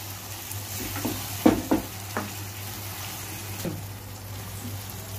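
Chicken mince masala sizzling in a non-stick wok while a metal spoon stirs it, the spoon scraping and knocking against the pan several times.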